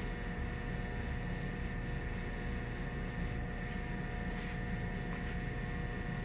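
Steady machine hum made of several constant tones over a low rumble, with a few faint soft ticks.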